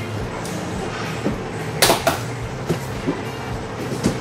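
Cardboard box being opened by hand, its taped flaps pulled apart, with a short loud rasp of cardboard about two seconds in and a few lighter scrapes, over quiet background music.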